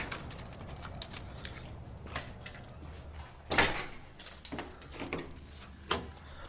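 Handling noise: scattered light clicks and rattles, with two louder clatters about three and a half and six seconds in.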